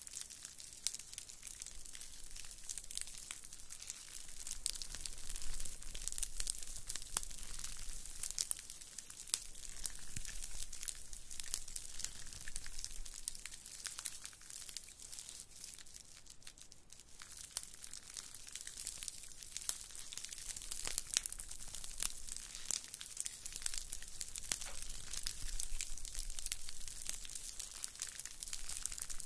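Fingers scratching and rubbing a round woven straw coaster held close to the microphones: a continuous dry, crackly rustle made of many fine clicks, swelling and easing in waves.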